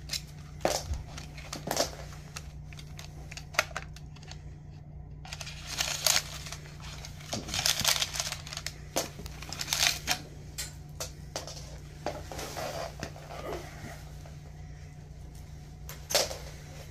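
Handling noise from a TACKLIFE portable tire inflator being turned over in the hands and its cord unwrapped: scattered clicks and knocks of the plastic casing, with rustling and crinkling. A steady low hum runs underneath.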